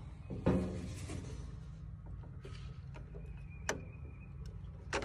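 A flathead screwdriver working the terminal screw on the side of a 15 amp circuit breaker: a short scrape about half a second in, then two sharp metallic clicks near the end, over a steady low hum.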